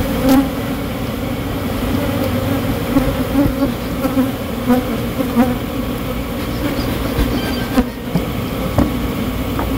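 A dense swarm of defensive honey bees buzzing close around the microphone: a steady, many-voiced drone, wavering a little in pitch as bees pass near.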